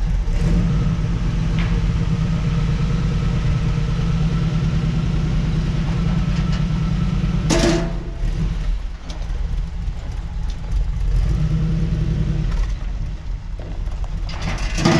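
Jeep CJ-7 engine running at idle through its new dual Borla mufflers, a steady, even low rumble as the Jeep creeps off the lift. A brief sharp noise cuts in about halfway through.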